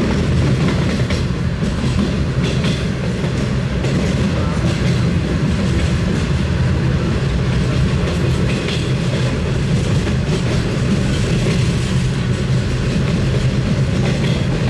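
Diesel-hauled commuter train running along the track: a steady low rumble with the wheels clicking over the rails.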